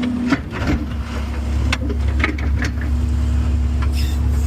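Mini excavator's diesel engine running steadily under hydraulic load, with several sharp knocks and scrapes as the steel bucket works at a big rock in the dirt.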